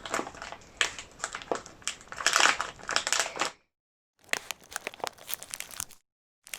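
A crisp packet being rustled and crumpled by hand, a dense crackling. It stops dead after about three and a half seconds, and a shorter spell of crinkling follows.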